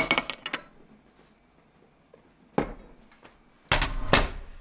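A wooden spoon clinks a few times against a stainless-steel bowl as a sauce is stirred, then a single knock about halfway through. Near the end come two loud clacks from a portable gas stove as its knob is turned to light the burner under the pan.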